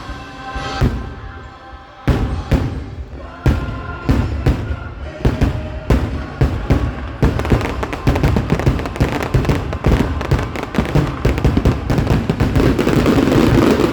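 Fireworks bursting over orchestral show music: scattered booms at first, then from about two seconds in a rapid, thickening barrage that builds into continuous crackling, typical of a fireworks finale.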